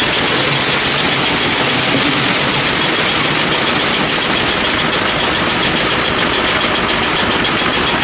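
A heavy construction machine's engine running steadily and loudly, with a fast, even rattling pulse through it.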